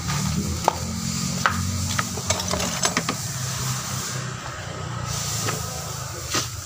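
A steady low mechanical hum, with scattered light clicks and knocks.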